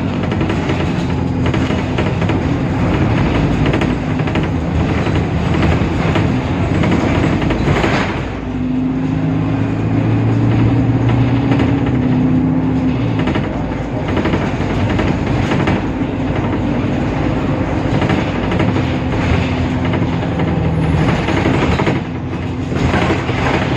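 Temsa Avenue LF city bus under way, its DAF PR 228 diesel engine running under a steady drone of road noise, with many knocks and rattles throughout. About eight seconds in the sound dips briefly, then the engine note comes back stronger and climbs slightly.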